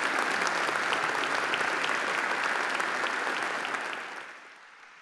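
An audience in a large chamber applauding, a dense steady round of hand claps that fades away over the last second or so.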